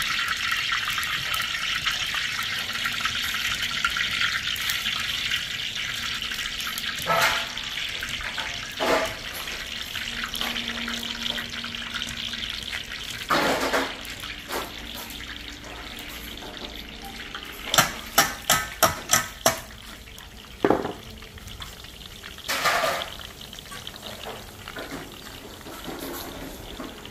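Besan phulwadi dough dropping through a perforated jhara into hot oil in a kadai, the oil sizzling steadily and slowly fading. It is broken by scattered sharp knocks, with a quick run of about six knocks about two-thirds of the way through.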